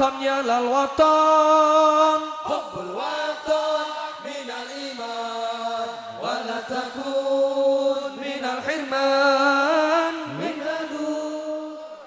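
Unaccompanied sholawat singing: a single voice holding long notes with ornamental turns and glides between them, with no instruments behind it.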